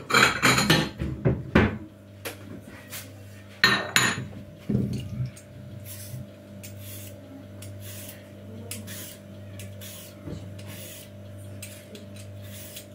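Clatter of dishes and a cupboard for the first couple of seconds and a knock near four seconds, then a hand vegetable peeler scraping the skin off a cucumber in a run of short, quick rasps over a low steady hum.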